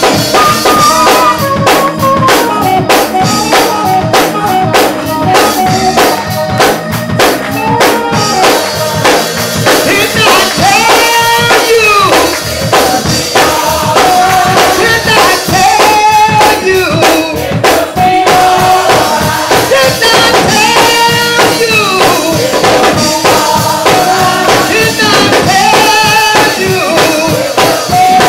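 Loud live gospel praise music: a woman singing lead through a handheld microphone over a band with a fast-hit drum kit.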